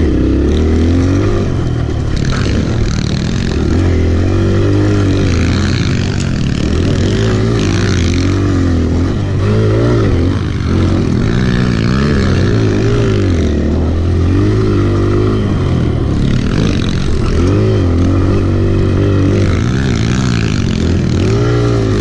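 Kawasaki KLX pit bike's small single-cylinder four-stroke engine, heard from on board, revving up and easing off over and over as it is ridden hard around a tight dirt track.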